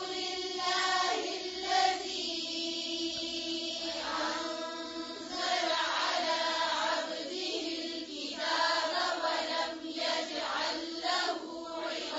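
A single voice chanting Quranic recitation in a slow, melodic tajweed style: long held, wavering notes in one continuous line with only short breaks.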